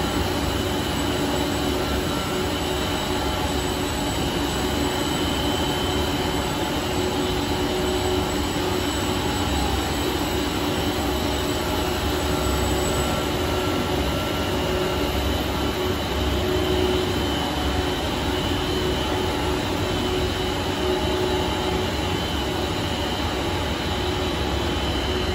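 PVC board production line machinery running steadily: a constant industrial hum and rush of motors and fans, with a few steady held tones over it.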